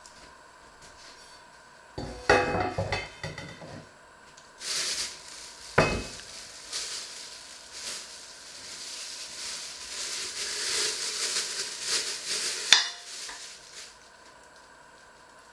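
Stainless steel pot and metal pan lid clattering as they are set down on a wooden board, then long crinkling of a plastic bag as raw meat is handled, with a sharp knock against the pot near the end.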